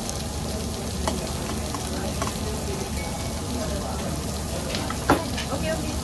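Meat sizzling steadily on a tabletop Korean BBQ grill pan, with a few light clinks of metal chopsticks on small steel dishes, the loudest a sharp clink about five seconds in.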